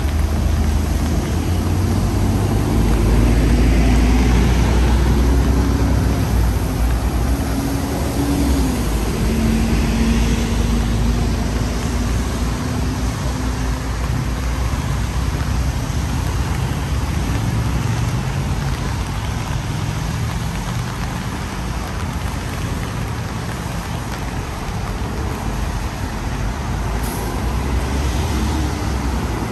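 Road traffic: the low rumble of a heavy vehicle's engine close by, loudest a few seconds in, with an engine hum that shifts in pitch over the first dozen seconds.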